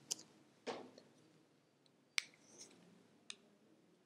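A handful of faint, sharp clicks, about five spread over four seconds, the loudest a little past the halfway point, over quiet room tone.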